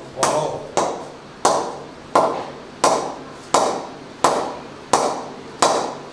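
A leather cricket ball bounced over and over on the face of an SS Master 7000 Grade 2 English willow bat: nine sharp knocks, about one and a half a second, each ringing out briefly. This 'ping' is the bat's rebound being tested.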